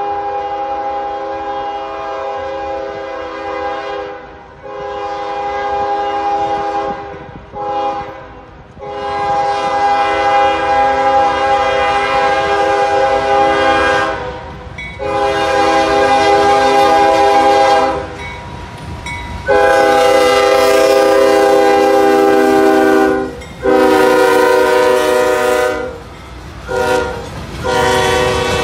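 Freight locomotive air horn sounding a chord of several pitches in long and short blasts, in the long-long-short-long pattern of the grade-crossing warning, begun again about halfway through. Under the horn, a fainter rumble of the passing train.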